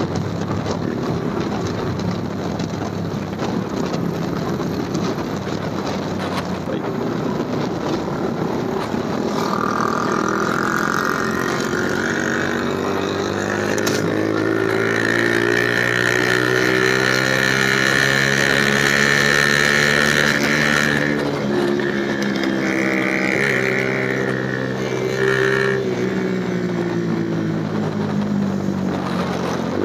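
Infinity 150cc motorcycle engine under way. It pulls up through the revs over several seconds, holds high revs, drops back about two thirds of the way in, picks up again and then eases off, over a steady rush of wind noise.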